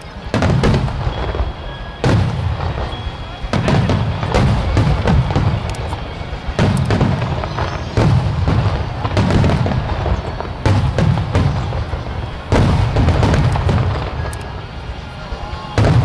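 Aerial firework shells bursting one after another, a sharp bang with a deep rumbling boom roughly every one and a half seconds, over music playing.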